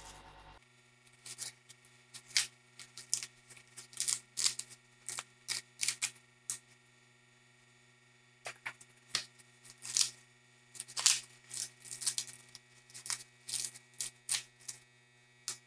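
Hands rubbing and stripping the silk off fresh husked mielies (white corn cobs), a run of short, dry rustling strokes with a pause about halfway.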